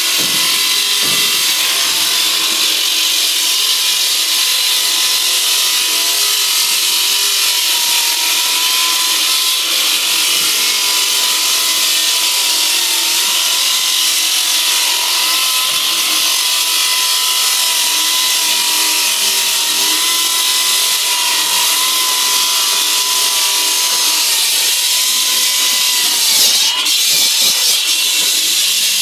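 Dr Bender electric diamond handsaw on 32-amp three-phase power cutting into reinforced concrete: a loud, steady grinding hiss over a high motor whine. The whine dips briefly and recovers near the end.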